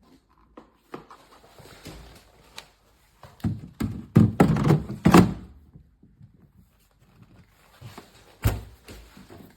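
A run of knocks and plastic thunks, loudest in a cluster from about three and a half to five seconds in, with one more thud near the end: the dirty-water tank of a Xiaomi Robot Vacuum X20 Pro base station being handled after the station reported it missing or full.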